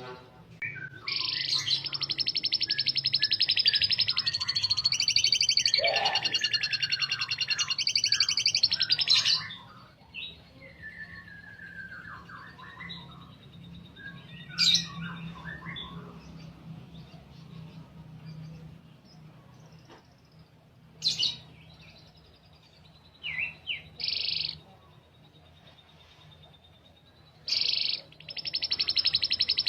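Domestic canary singing: a long, rapid rolling trill lasting several seconds, then scattered short chirps and phrases, and another long rolling trill starting near the end, over a faint steady low hum.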